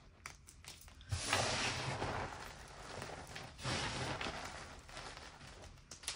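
Hands squeezing and crumbling loose powdered gym chalk, two long crunching squeezes, one about a second in and one near the middle, with faint crumbling ticks between.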